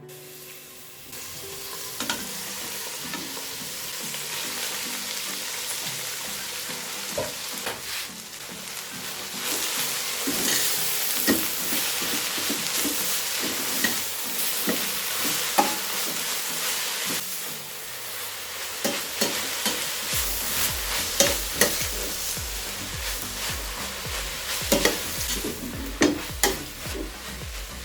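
Food sizzling as it fries in hot oil in a pot, getting louder about nine seconds in, while a spoon stirs it and clicks and scrapes against the pot.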